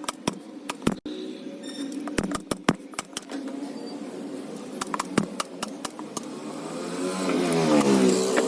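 An engine hum that grows louder and slides in pitch near the end, under a scatter of sharp clicks and taps.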